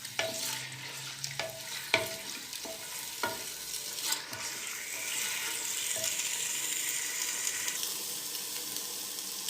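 Mutton frying in hot cooking oil in a handi, sizzling steadily, with a utensil knocking and scraping against the pot as the meat is stirred, mostly in the first few seconds.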